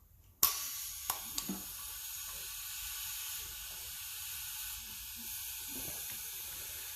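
Compressed air hissing steadily through a cylinder leak-down tester into one cylinder of a 5.7L Vortec V8. The hiss starts abruptly with a click about half a second in, and a couple of small clicks follow. This is a leak-down test on a cylinder that reads good.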